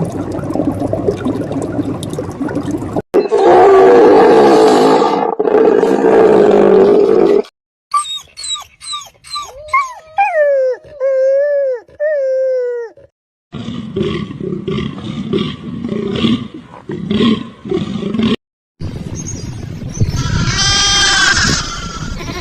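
A string of different animal calls in separate cuts, with no pause for speech. A loud, rough roar is the loudest part, about three to seven seconds in; it is followed by a run of pitched calls that slide down in pitch, then quick choppy calls, and a strongly pitched call near the end.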